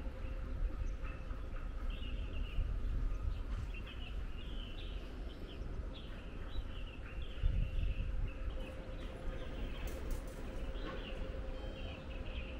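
Small birds chirping in short repeated notes, over a steady low outdoor rumble and a faint steady hum.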